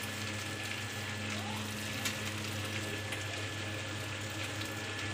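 Green capsicum frying in a little oil in a kadhai on a gas stove: a low, steady sizzle, with a steady low hum underneath.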